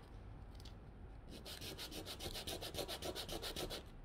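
Sandpaper rasping over a small wooden dowel as it is rolled back and forth under the folded sheet, sanding down the dowel's thick middle. The strokes are sparse at first, then run quickly, about nine a second, from about a second and a half in.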